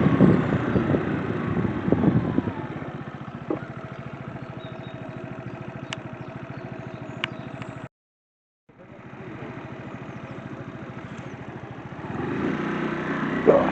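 Scooter engine running steadily, loudest in the first couple of seconds and again near the end. It cuts out completely for under a second about eight seconds in.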